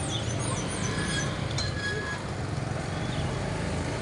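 A motor running steadily as a low rumble, with river birds calling a quick series of high, down-slurred notes over it in the first second or so and a few thin whistles after.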